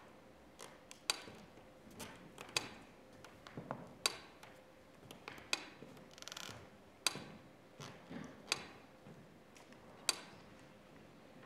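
Mechanical metronome ticking slowly and evenly, one sharp tick about every second and a half. Fainter footsteps on the wooden stage come between the ticks, with a brief shuffle about six seconds in.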